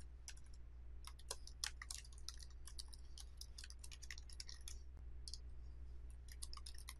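Faint, irregular clicking of computer keyboard keys being typed, with a mouse click among them, over a steady low hum.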